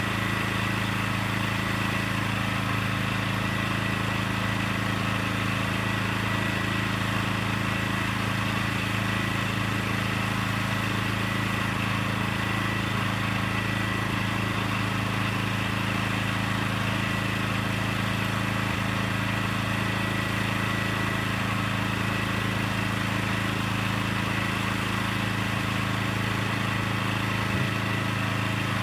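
Small gasoline engine on a portable truck scale's frame running steadily at a constant speed, with a thin steady high whine over it.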